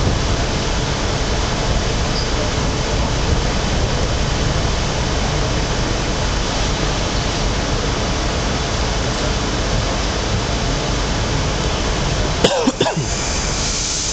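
Commuter train running at speed, heard from inside the passenger car as a steady rumbling rush of wheel and track noise. Near the end a short sudden sound with a wavering pitch cuts through.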